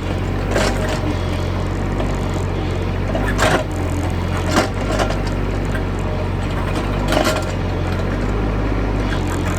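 Excavator's diesel engine running steadily, with several short knocks and scrapes of the bucket digging into a termite mound.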